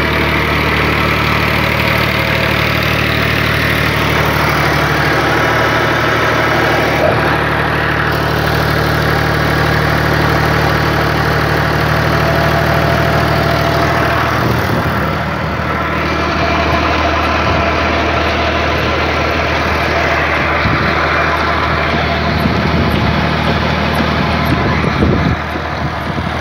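Al Ghazi tractor's diesel engine running steadily, driving a belt-driven generator through its PTO shaft. After about halfway the even engine note gives way to uneven low rumbling.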